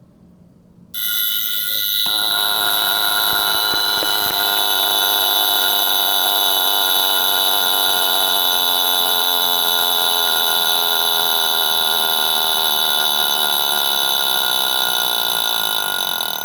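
Vintage 1950s Bueche Girod sub-miniature mechanical alarm clock going off: its alarm rings loud and unbroken for about fifteen seconds, starting suddenly about a second in and stopping near the end. A long and loud alarm.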